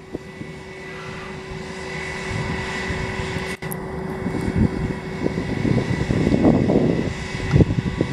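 Jet engines of an Airbus A320-family airliner running at taxi power: a steady whine with a high tone, growing louder as the plane approaches. Uneven low rumbling swells in the second half.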